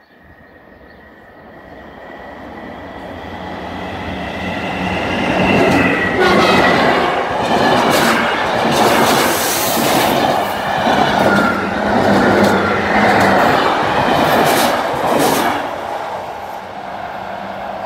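Belgian SNCB electric multiple unit passing close by on the line: the running noise builds steadily for about six seconds, then the wheels click over the rail joints in quick, uneven knocks along with a thin high tone while the carriages go past, and the sound falls away near the end as the train draws off.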